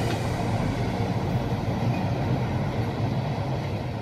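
Steady low rumble of a train on the line, fading slowly as it draws away.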